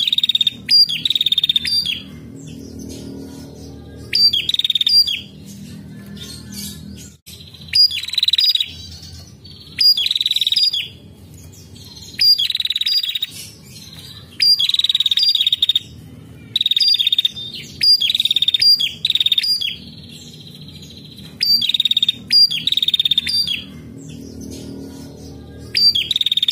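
Female tailorbird (prenjak) calling: short, rapid, high trilled bursts, often two or three in quick succession, repeated every couple of seconds.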